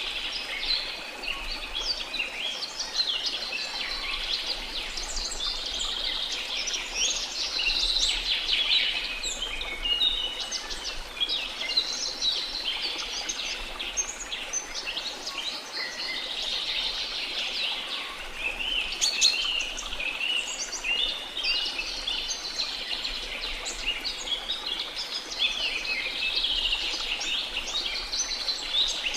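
Rainforest birds chirping and singing without pause, many short calls overlapping, over a steady hiss of falling water from a waterfall.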